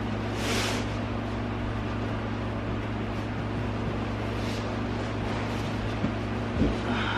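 Steady low mechanical hum over a hiss, with a few faint knocks near the end.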